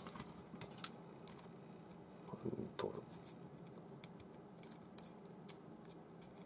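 Faint, scattered light clicks and a brief scratchy scrape of small metal fishing-reel parts being handled as the handle is fitted and hand-threaded onto the reel.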